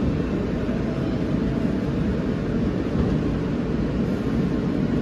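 Inside a moving New York subway car (R160): the steady low rumble of wheels on rail and the running gear as the train rolls toward a station.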